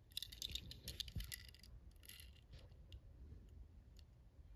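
Faint clicks and light rustling of fingers handling and turning a small die-cast toy car, clustered in the first two and a half seconds, then near silence.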